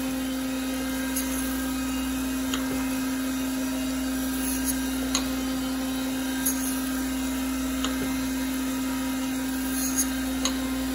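DoALL automatic surface grinder running wet: a steady hum from the wheel spindle under the hiss of coolant, as the grinding wheel sparks out on a 1911 frame part, taking a tiny skim cut. Faint ticks come every second or two.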